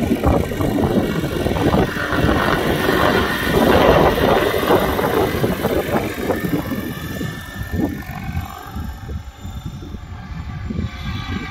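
UH-1 Huey-type helicopter in flight, its rotor and engine noise growing louder as it passes close about four seconds in, then quieter over the last few seconds as it moves away.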